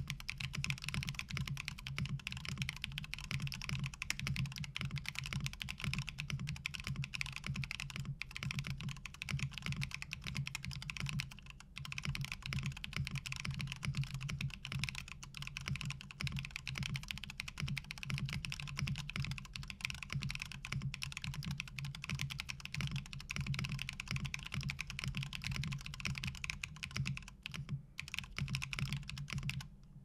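Fast, continuous typing on a Jalter60 60% custom mechanical keyboard, top-mounted with an aluminium plate and no foam, fitted with stock, unlubed KNC Keys Green Jacket tactile switches and NicePBT keycaps. There is a short break in the keystrokes about a third of the way in.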